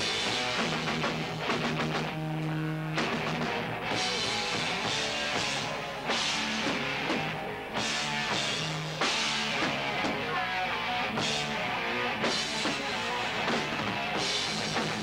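Rock band playing live: drum kit and electric guitar, with a singer on the microphone.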